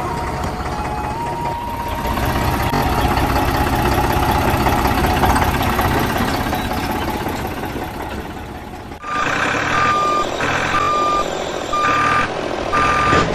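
Truck engine running with a rumble, then about nine seconds in a reversing alarm beeps steadily, roughly once a second, over the engine.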